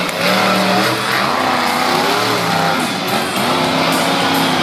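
Monster truck engines running loud and revving up and down repeatedly, the pitch rising and falling several times.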